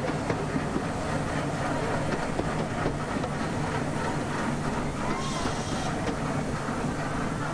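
Miniature park railway train running, heard from an open passenger carriage: the steady rumble of the carriage rolling on its rails.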